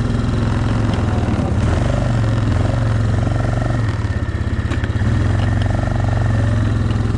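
Yamaha Kodiak ATV's single-cylinder four-stroke engine running, heard from the rider's seat. Its speed sags and picks up again about four seconds in.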